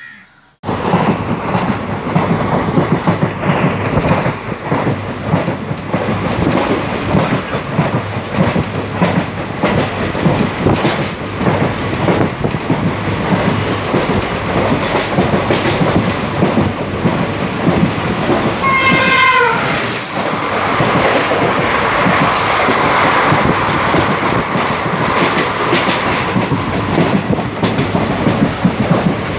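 Passenger train running, heard from inside a carriage at a barred open window: steady rumble and rushing air, with the clickety-clack of wheels over rail joints. About two-thirds of the way through, a short wavering high-pitched tone sounds briefly.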